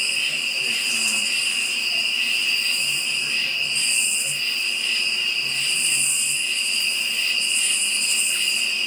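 Night insect chorus of crickets and katydids: a steady shrill trilling, with a higher buzzing layer that swells and fades every second or two.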